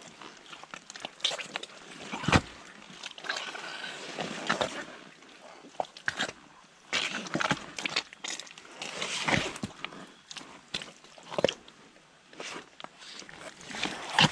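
Rubber boots stepping through thick, sticky clay mud: irregular wet squelches and sucking noises as each boot sinks in and pulls free. The loudest come about two seconds in, about nine seconds in and near the end.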